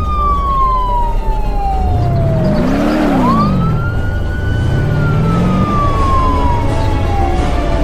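Police siren wailing in long, slow cycles: a quick rise about three seconds in, then a slow fall in pitch, over the low rumble of a vehicle engine whose pitch rises and falls.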